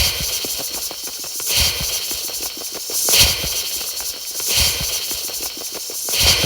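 Rhythmic hissing that swells about once every one and a half seconds, each swell with a soft low thump: a pulsing sound effect.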